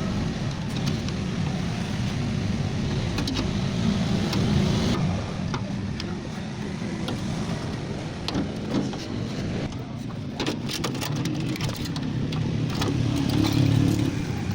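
Scattered clicks and clinks of metal parts and tools as a microwave oven is taken apart, over a steady low background rumble.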